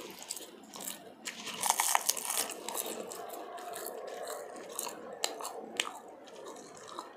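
Close-up chewing of food with wet mouth clicks and crunches scattered through.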